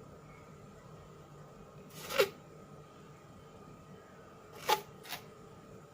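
Short, sharp clicks against a quiet room: one about two seconds in, then two more close together near the end.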